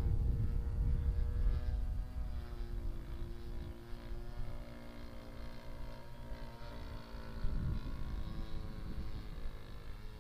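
RC scale model Meta Sokol flying at a distance, its motor droning with a pitch that drops about two seconds in and then holds steady. Wind rumbles on the microphone, heaviest in the first couple of seconds.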